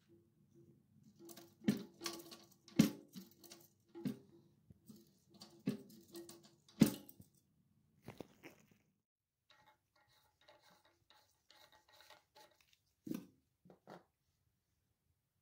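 A run of sharp clicks and knocks, five of them in the first seven seconds, over a low steady hum that stops about nine seconds in; two more knocks come near the end.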